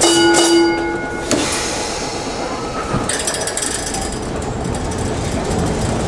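Peter Witt streetcar 6119 getting under way on curved track. A steady ringing tone sounds for a little over a second at the start, then the car rattles and clicks as it rolls.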